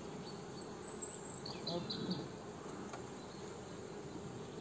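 Honeybees humming steadily around an open nucleus hive packed with a strong colony: a low, even buzz.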